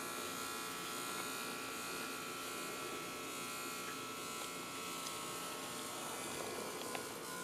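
Electric hair clippers buzzing steadily as the blade is run over a nearly bald scalp, cutting close stubble against the grain.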